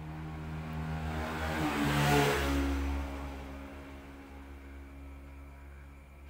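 A motor vehicle passing by: engine noise swells to a peak about two seconds in, its pitch shifting, then fades away over a steady low hum.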